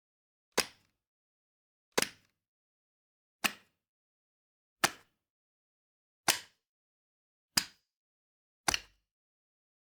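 Gun-grab sound effect: a short, sharp clack of a hand taking hold of a gun, played seven times about every second and a half with silence between, the last one a quick double clack.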